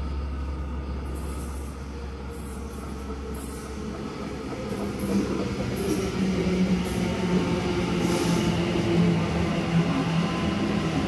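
Sydney Trains double-deck electric train coming into the platform and passing close by. The steady electric hum and the wheel-on-rail noise grow louder about halfway through as the carriages draw alongside, with short high clicks and squeals from the wheels.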